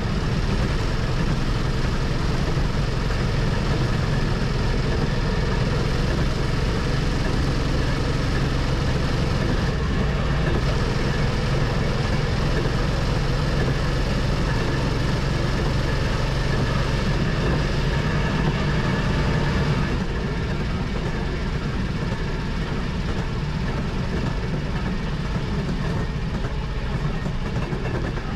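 Rail motorcar (speeder) running along the track, a steady engine drone with the noise of its wheels on the rails. About two-thirds of the way through, the sound drops a little in level.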